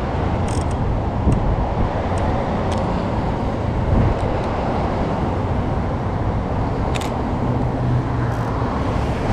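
Steady outdoor rumble of street traffic and wind on the microphone, with a few short faint clicks.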